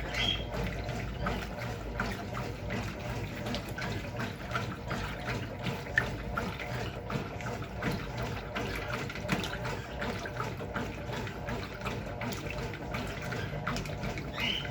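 Water running and splashing inside a Brastemp Clean 6 kg washing machine, a steady wash of sound with many small splashes.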